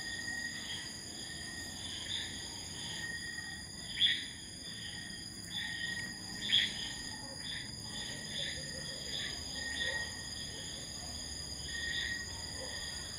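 Night insect chorus: steady high-pitched trilling at several pitches at once, with a few louder short calls over it, the loudest about four seconds in and again about six and a half seconds in.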